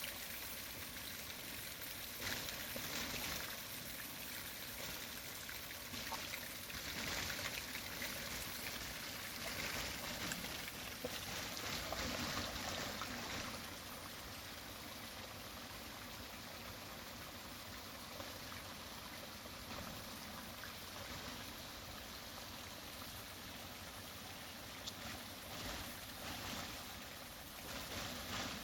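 Steady rain falling, a little louder in the first half.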